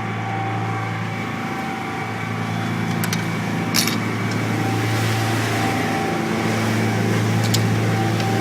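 Steady low hum of a cruise boat's engine, running evenly, with a few sharp clicks about three, four and seven and a half seconds in.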